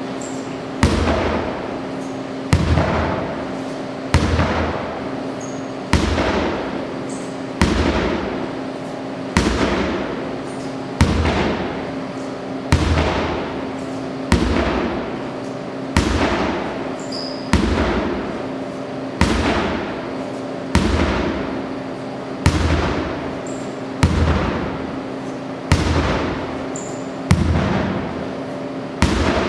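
A 10-pound sledgehammer striking a tractor tire over and over, about one blow every 1.7 seconds. Each is a sharp, heavy thud that dies away in an echo, with a steady low hum underneath.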